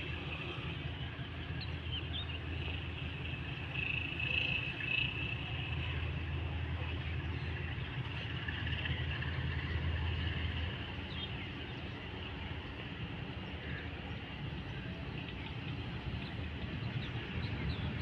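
RGE 20 diesel-electric locomotive with a coal train approaching from a distance: a low steady rumble over open-air hiss, with short high chirps on top.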